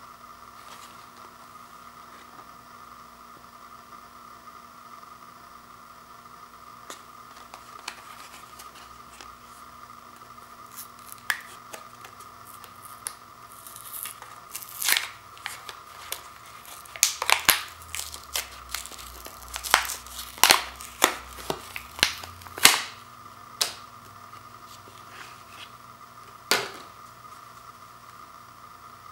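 Cardboard-and-plastic blister pack being torn and pried open by hand: a run of sharp cracks, rips and crinkles that grows busiest a little past halfway, with one last crack near the end.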